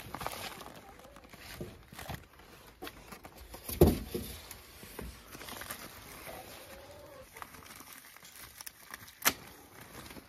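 Plastic and foam packaging wrap rustling as it is pulled and handled off a portable party speaker, with two knocks, a louder one about four seconds in and a sharp one near the end.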